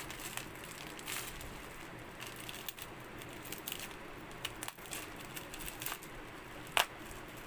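Plastic bubble wrap around a glass ink bottle crinkling and rustling as it is handled and unwrapped, in irregular small crackles, with one louder sharp click near the end.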